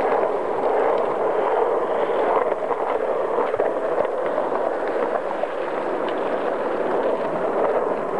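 Skateboard wheels rolling over rough asphalt: a steady, loud rumble heard close up from a moving board, with a few faint clicks.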